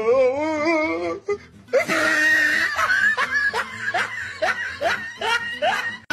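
Laughter: a wavering laugh in the first second, then after a short pause a long run of laugh pulses, about three a second, each rising in pitch.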